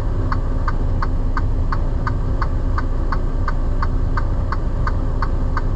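Hazard-light flasher ticking steadily, about three clicks a second, inside a semi-truck's cab over the low, steady rumble of the idling diesel engine.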